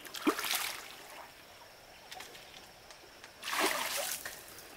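Two brief bursts of water splashing, about three seconds apart.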